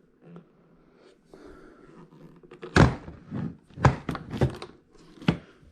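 Rice cooker being handled: faint rustling, then five or six sharp knocks and clunks about every half second, starting about three seconds in.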